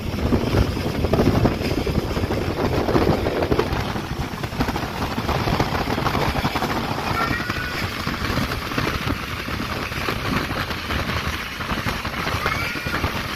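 Karakoram Express passenger train running at speed, heard from a carriage window: a dense rattle of wheels on the rails and of the carriage, over a steady low rumble and rushing wind.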